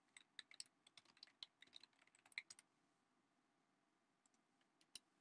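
Faint typing on a computer keyboard: a quick run of keystrokes for about two and a half seconds, then a pause and a single sharper click near the end.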